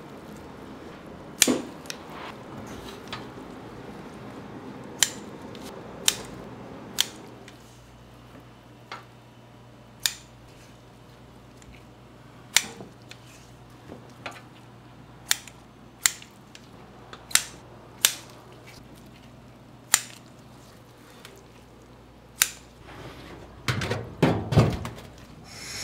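Kitchen work on raw beef intestines: about twenty sharp clicks and knocks at irregular intervals, bunching together near the end, over a low steady hum through the middle.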